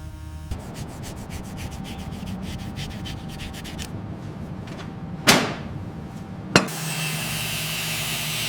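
Rapid, regular sanding or rubbing strokes, about six or seven a second, then two loud sharp knocks with a short ring about a second apart, followed by a steady hiss.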